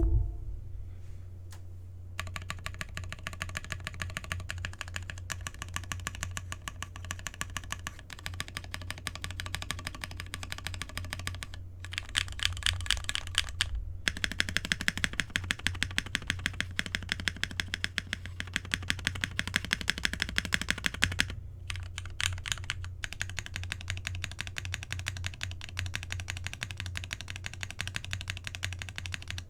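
Fast typing on a Cannonkeys Bakeneko 60% custom mechanical keyboard with lubed POM Durock linear switches, an FR4 plate and PBT keycaps: a dense, steady stream of keystroke clacks starting about two seconds in, with a few brief pauses. A sharp knock comes right at the start, and a low steady hum runs underneath.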